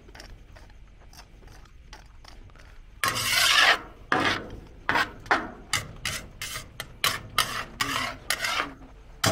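Rasping, scraping strokes: one long stroke about three seconds in, then quicker short strokes, two or three a second.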